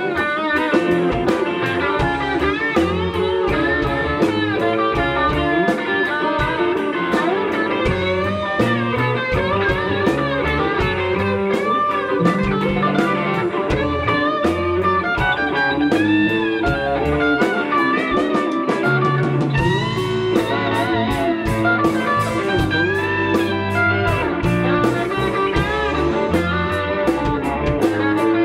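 Live rock band playing: an electric guitar leads with bent, sliding notes over bass guitar and drums.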